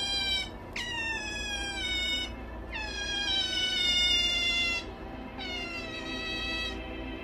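Pet otter squealing: four long, high-pitched calls in a row, each starting abruptly and sliding slightly down in pitch.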